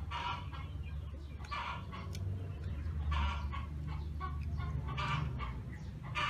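Chickens clucking, with four loud squawking calls spaced about one and a half to two seconds apart and fainter clucks between, over a steady low rumble.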